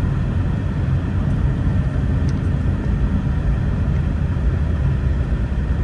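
Steady low rumble with no break.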